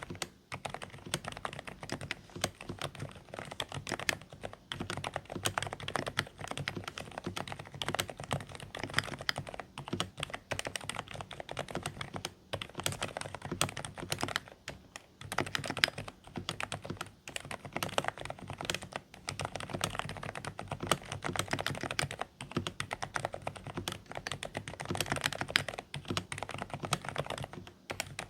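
Continuous fast typing on a Dareu A104 Pro mechanical keyboard with silent (low-noise) beige switches: soft, slightly muffled keystrokes with a few short pauses between runs.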